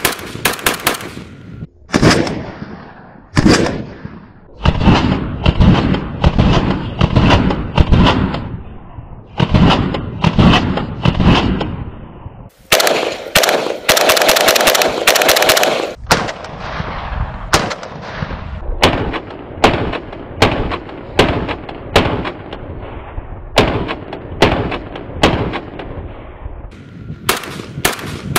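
Vulkan-M bullpup Kalashnikov rifle in 5.45 firing: quick strings of closely spaced shots in the first half, then steady single shots roughly every half second to second.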